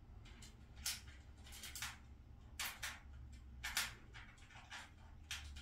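Faint, short scratchy scrapes at irregular intervals as a screw is turned by hand into the metal cabinet door's frame to fix a handle, over a low steady hum.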